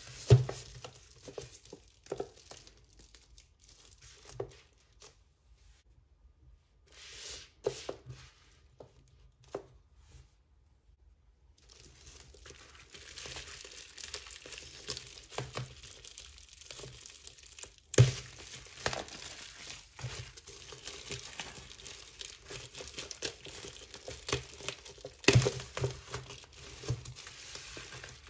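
Plastic bubble wrap being handled and pulled off a box. Scattered taps and rustles give way, about halfway through, to steady crinkling, broken by two sharp cracks.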